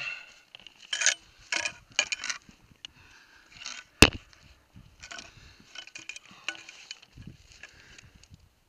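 Climbing gear, gloves and boots scraping and rustling against rock during a downclimb, in short irregular bursts. One sharp knock about four seconds in is the loudest sound.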